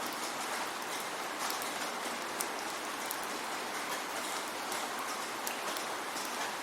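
Steady rainfall, an even hiss with scattered sharp drop ticks.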